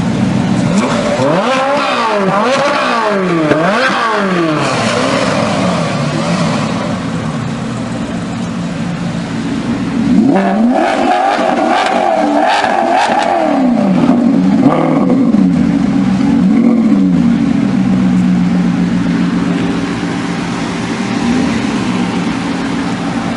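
Sports car engines revved hard at a standstill, in repeated sharp rises and falls of revs, with a first burst a second or so in and a second burst at about ten seconds. In between and toward the end the engines idle and run steadily.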